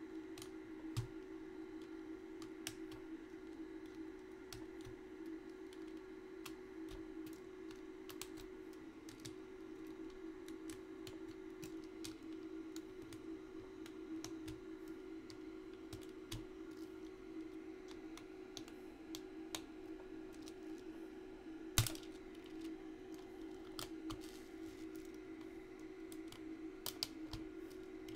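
Mechanical keyboard switches clicking and rattling as they are pulled out of the keyboard plate and added to a pile, with irregular small clicks and one louder knock about two-thirds of the way through, over a steady low hum.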